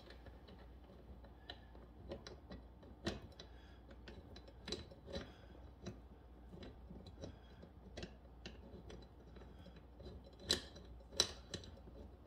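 Irregular light clicks and taps of screws and metal parts being handled as the gaming chair's back support is screwed on, with a few sharper knocks about three seconds in and near the end.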